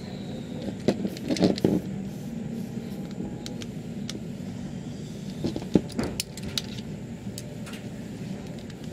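Hard plastic clicks, taps and knocks as the plastic casing of a Hubsan Zino drone battery is handled and pried at with a small screwdriver, with a cluster about a second and a half in and another around six seconds in. A steady low hum runs underneath.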